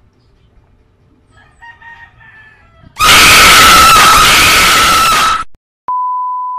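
Jump-scare screamer sound effect: a sudden, very loud, harsh shriek starting about three seconds in and cutting off abruptly after about two and a half seconds. After a short gap it is followed by a steady test-tone beep, the sound that goes with TV colour bars.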